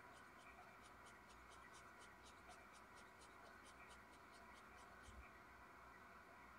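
Near silence: quiet room tone with faint, sharp high ticking, about four ticks a second, that stops about five seconds in.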